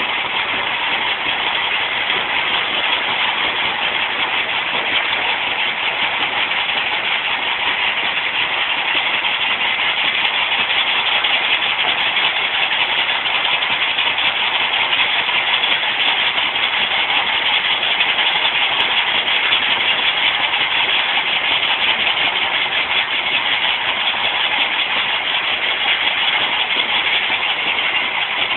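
Stone crusher machine running, a loud, steady, unbroken mechanical noise with no pauses or separate impacts.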